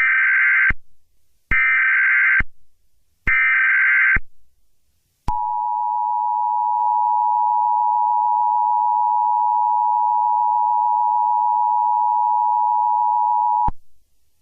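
Emergency Alert System SAME header: three short buzzy data bursts, each just under a second, about 1.7 s apart. Then the EAS two-tone attention signal (853 and 960 Hz together), a steady shrill dual tone held about eight seconds that cuts off sharply. Here the header introduces an Emergency Action Termination (all-clear) message.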